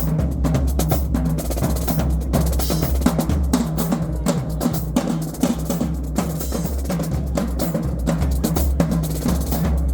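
High school marching band drumline playing a fast cadence: rapid snare strokes and rolls over steady bass drum hits.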